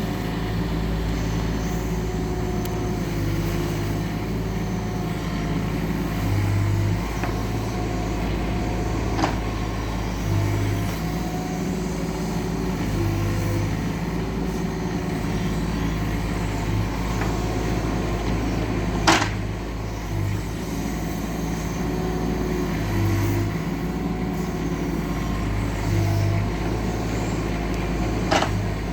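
Doosan DX19 mini excavator's diesel engine running steadily, its note swelling and easing every few seconds as the machine works. Three sharp knocks sound over it, the loudest about midway.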